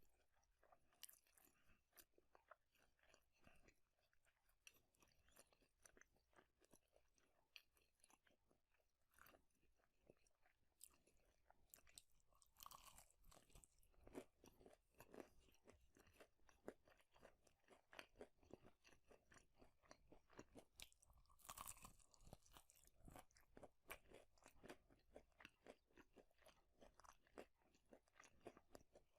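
A person chewing and crunching fast food, with dense, irregular small crunches and mouth clicks. It grows louder about twelve and twenty-two seconds in.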